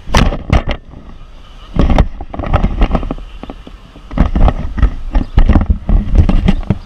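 Handling noise on a GoPro's microphone: a run of irregular knocks and bumps with a heavy low rumble as the camera is moved about and set on a cart.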